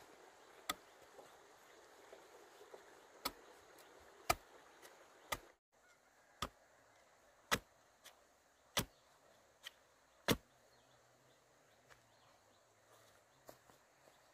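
A bamboo pole jabbed into the ground, making sharp, separate knocks about once a second, nine in all.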